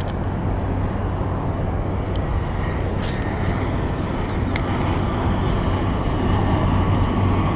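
Jet airliner flying low overhead: a loud, steady jet noise that builds slightly near the end, with a couple of faint clicks in the middle.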